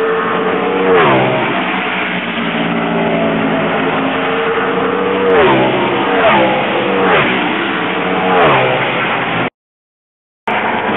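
NASCAR V8 race vehicles running at speed around the track, with about five passing close by, each one's engine note dropping in pitch as it goes past. The sound cuts out completely for about a second near the end.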